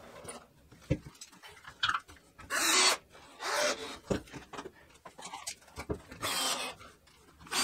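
Cordless drill driving screws to fasten a bus bar to the wall, run in three short bursts of about half a second each, with a few knocks from handling the parts in between.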